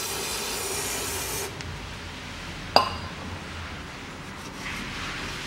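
Aerosol cleaner spray hissing as oil drips are washed off the engine's oil pan, cutting off about a second and a half in. A single sharp metallic clink follows about a second later.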